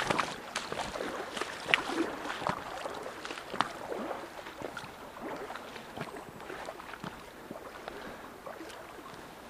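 Shallow stream water splashing and sloshing irregularly around a wader's steps. It is loudest in the first few seconds and fades toward the end.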